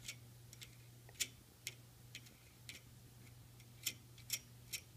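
Sharp, irregular metallic clicks, about a dozen, as a nut is spun by hand onto a threaded lamp rod at the lathe headstock, with a faint steady low hum underneath.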